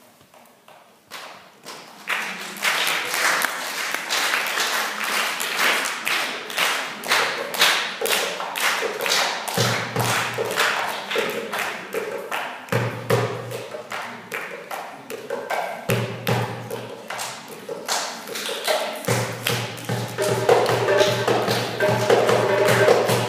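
Egyptian tabla (goblet drum, darbuka) played solo by hand, in fast, dense strokes starting about two seconds in. From about ten seconds in, a low steady tone sounds under the drumming in stretches.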